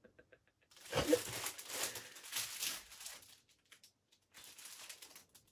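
Clear plastic packaging around a boxed product crinkling as it is handled and turned, with a soft bump about a second in. The rustle lasts about two and a half seconds, then comes again more faintly near the end.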